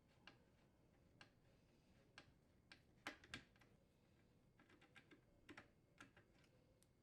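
Faint, irregular clicks and taps from a T20 Torx driver working out the hinge screws, the loudest about three seconds in.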